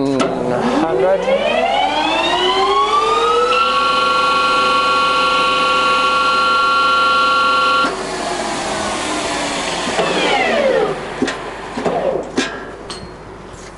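Luxcut Z460B centre lathe's geared headstock and spindle spinning up with a rising gear whine, then running steady at speed for about four seconds. About eight seconds in the drive is cut, and the whine falls in pitch as the spindle runs down.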